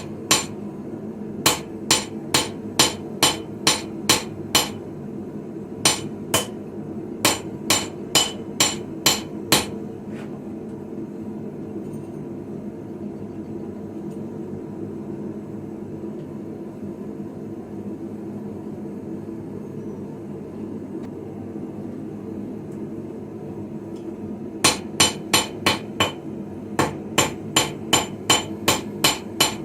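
Hand hammer striking a blade on an anvil while forging a sickle, in quick runs of ringing blows about three a second. The blows stop for a long pause in the middle and start again near the end. A steady low hum runs underneath throughout.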